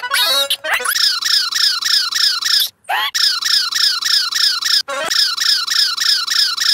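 Cartoon bunny squeaks and short high gliding vocal sounds over a fast, even warbling pulse, about four or five a second, that runs through the whole soundtrack. The sound cuts out briefly twice, just before three seconds in and near five seconds.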